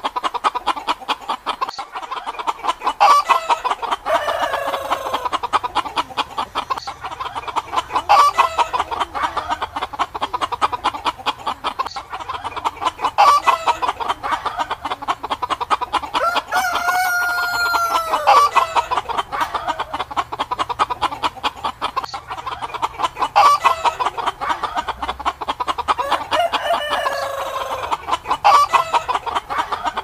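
A flock of chickens clucking continuously, with a few louder falling squawks. A rooster crows once, one long drawn-out call a little past halfway.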